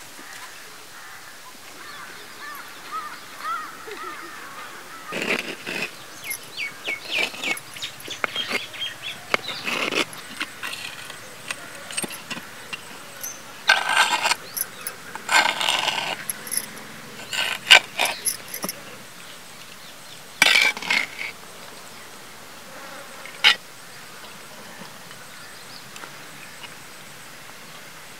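Rural outdoor ambience: bird calls over a steady background haze, with scattered short clicks and bursts.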